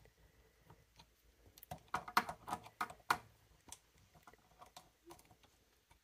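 Light clicks and taps of a Hermes 3000 typewriter's metal parts being handled during carriage reinstallation: a quick cluster of them a couple of seconds in, then a few fainter ticks.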